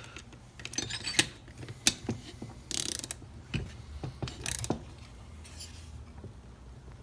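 Ratchet of a preset torque wrench clicking in short runs and single clicks as it tightens a chainsaw cylinder nut toward 15 newton metres.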